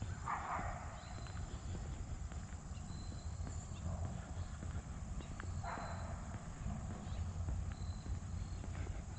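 Outdoor park ambience: steady footsteps of a person walking along a path, with two short dog barks about five and a half seconds apart.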